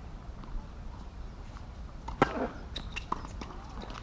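A few sharp knocks of a tennis ball bounced on a hardcourt before a serve, the loudest about two seconds in, over a low steady rumble.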